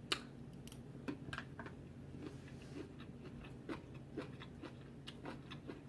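A person chewing food close to the microphone: a scattering of short, irregular wet mouth clicks and smacks, a few a second.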